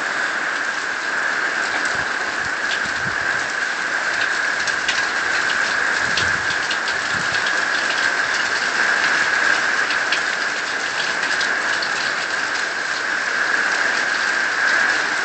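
Heavy tropical-storm rain falling in gusty wind: a steady, dense hiss of rain with scattered sharp ticks of drops striking surfaces.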